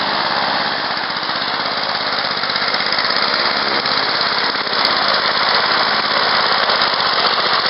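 Honda single-cylinder four-stroke lawn mower engine running steadily with its blade spinning, as the radio-controlled mower drives across the grass.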